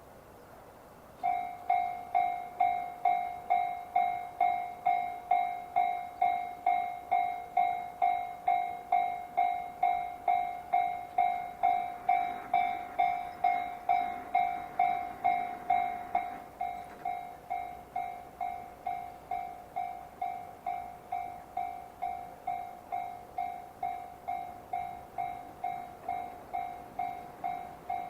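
Japanese railway level-crossing warning bell starting up and ringing its repeated two-strokes-a-second alarm tone, the signal that a train is approaching. About sixteen seconds in it drops noticeably in volume and keeps ringing.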